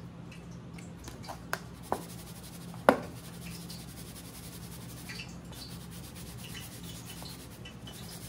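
Soft rustling of dry fish-fry breading as a fish fillet is pressed and turned in it in a metal baking pan. A few sharp taps against the pan come between about one and a half and three seconds in, over a steady low hum.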